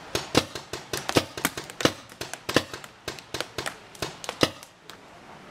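Paintball marker firing about two dozen sharp pops in quick, uneven strings, several a second, stopping near the end.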